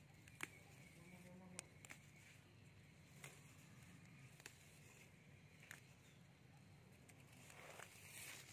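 Near silence, with a few faint sharp snaps and a soft rustle of leaves near the end as young mugwort shoots are pinched off by hand.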